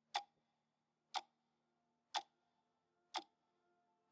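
Four sharp ticks, evenly about one a second, against near silence with a faint low hum.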